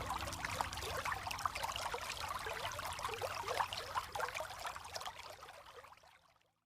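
Falling water splashing and trickling, a dense patter of small bubbling plips. It fades away in the last second and a half to silence.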